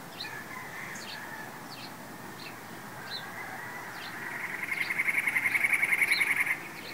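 Unidentified songbird calling: a few short, high chirps, then a rapid rattling trill that grows louder over about two and a half seconds and stops abruptly.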